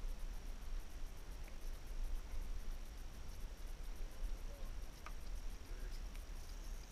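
Quiet underwater ambience picked up by a submerged GoPro in its housing: a steady low rumble and a thin, steady high whine, with a few faint ticks.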